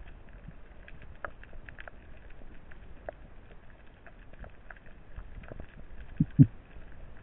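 Underwater ambience picked up by a camera in its housing: scattered crackling clicks over a low rumble, with two sharp low thumps about six seconds in.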